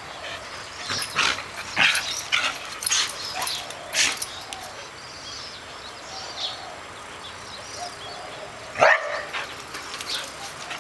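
Two Belgian Tervuren shepherds barking in rough play: a quick run of short barks in the first four seconds, fainter whining in the middle, and one loud bark near the end.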